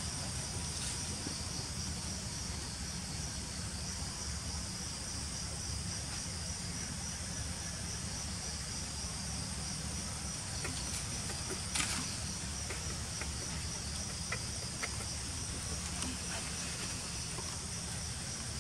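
Steady chorus of insects: a shrill, unbroken high-pitched drone over a low steady rumble. A few faint ticks and one sharper click come a little before the middle.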